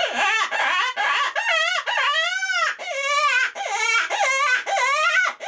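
A reed predator hand call, Travis's Voodoo, blown as rabbit distress: a rapid run of wavering, squalling cries, about two a second, each bending up and down in pitch.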